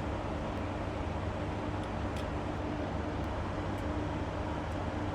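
Steady fan-like air noise with a constant low hum, and a few faint light clicks of small tools on the drive parts.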